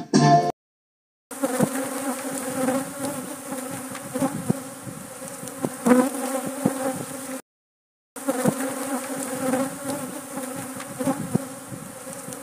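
Many honeybees buzzing around their hive box: a steady, even-pitched hum, with single bees now and then flying close past the microphone. The sound cuts out for a moment about halfway through.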